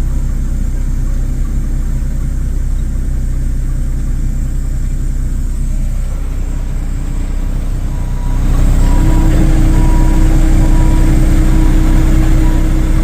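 Heavy vehicle engine running steadily at a construction site. It grows louder about eight seconds in, when a reversing alarm starts beeping at a steady pace.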